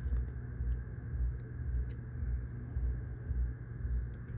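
A low, pulsing background rumble, swelling about one and a half times a second, with a few faint small ticks of tools on the phone.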